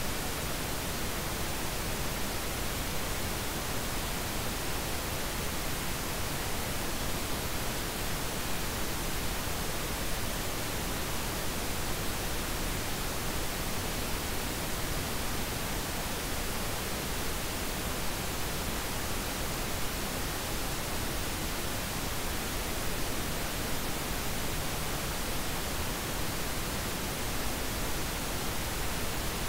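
Steady, unchanging hiss of synthetic noise like static, spread evenly from deep to very high pitches.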